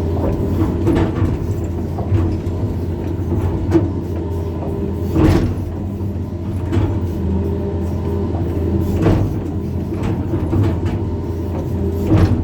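Hydraulic excavator's diesel engine running steadily under load as it works the bucket along a pond's slope, with a few short sharp clanks from the bucket and arm, the loudest about five seconds in.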